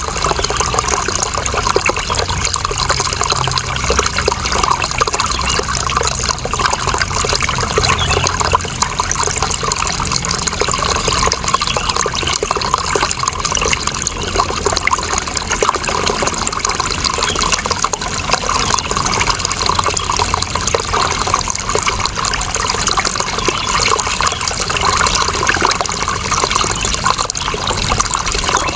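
Running water flowing steadily and evenly, with a bright, hissing splash and no change or break.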